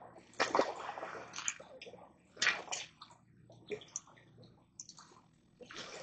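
Water splashing and sloshing in irregular bursts from a freshly caught channel catfish at the water's edge. The biggest splashes come about half a second in and again about two and a half seconds in.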